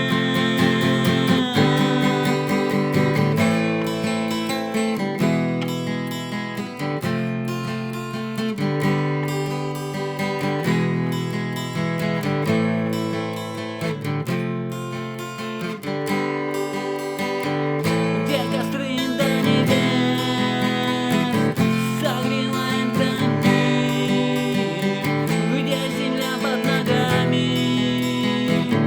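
Instrumental music: strummed acoustic guitar with other instruments, no singing.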